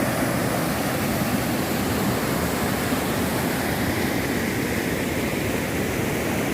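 Rushing water of a large river, a steady, even wash of noise.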